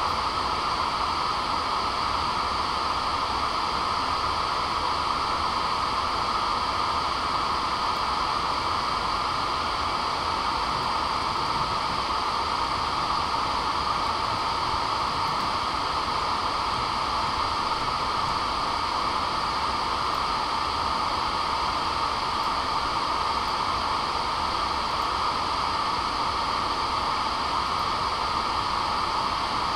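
Steady hiss-like test noise played through a Legacy 696-2 speaker driver running free air with no cabinet, for a frequency-response measurement. It switches on suddenly and is heaviest in the middle of the range.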